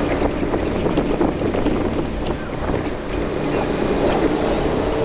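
Wake boat running at speed: steady engine drone mixed with the rush of its wake and spray, with wind buffeting the microphone.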